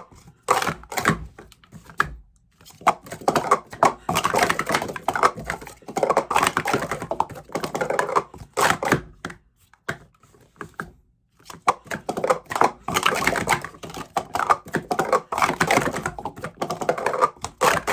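Clear plastic Speed Stacks Snap Tops sport-stacking cups clattering as they are rapidly stacked up and down, in quick runs of dense clacking with short breaks about two seconds in and around the middle.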